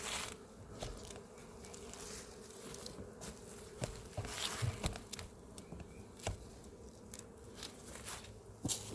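Honeybees buzzing steadily around a hive as it is opened, with scattered clicks and knocks of the hive being handled.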